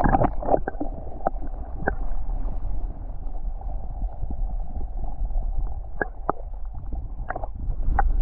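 Muffled underwater sound: a steady low rumble of water with scattered sharp clicks and knocks.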